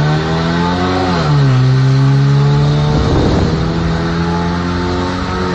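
Mk4 VW Golf's engine and exhaust heard from inside the car while driving: the revs climb for about a second, drop sharply, then hold a steady drone, falling again at the very end.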